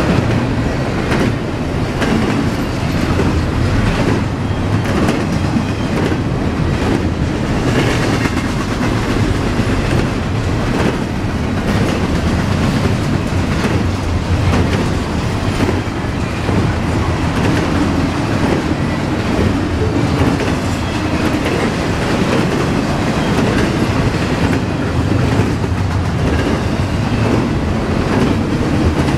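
Double-stack intermodal freight train's container well cars rolling past: a steady rumble with frequent irregular clicks and knocks from the wheels on the rails.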